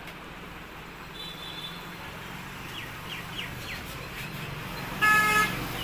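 Street background with birds chirping, and one brief, loud honk of a vehicle horn near the end.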